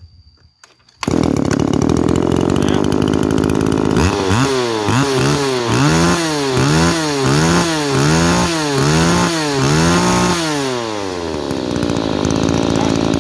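A Tanaka SUM-300B 30cc two-stroke brushcutter engine comes in abruptly about a second in and runs at idle. It is then revved up and down by hand on the carburettor throttle over and over, about once a second, before settling back to a steady fast idle near the end.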